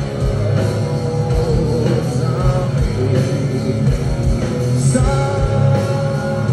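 Live rock band playing through a concert PA, heard from the crowd: distorted electric guitars and bass over a steady kick-drum beat, with singing coming in.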